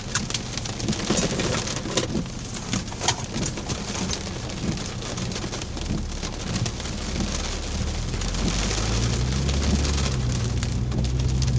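Raindrops pattering on a car's windshield and roof as the rain starts, heard from inside the cabin as scattered sharp taps over a hiss. A low steady hum of the car's engine and road noise builds in the second half.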